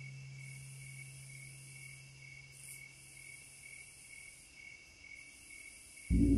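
Faint ambient soundtrack: a high chirp pulsing evenly about two to three times a second over a low steady hum that fades out. A loud, deep, gong-like musical swell comes in suddenly near the end.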